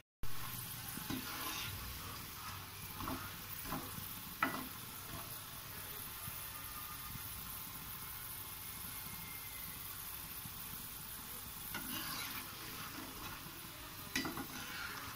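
Oil sizzling steadily as gram-flour-coated kadala deep-fries in a kadai. A perforated metal skimmer scrapes and taps against the pan a few times near the start and again near the end as the pieces are stirred.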